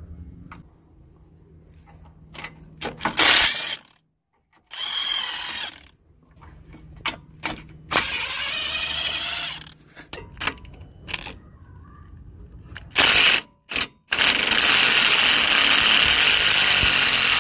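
Cordless impact wrench with a 16 mm socket undoing the lower suspension arm nuts, in several separate bursts of rapid hammering. The longest burst is near the end and runs about four seconds.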